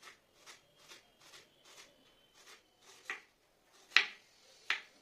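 Kitchen knife slicing an onion on a wooden cutting board: a run of soft taps, about two to three a second, then three sharper chops in the last couple of seconds, the loudest about four seconds in.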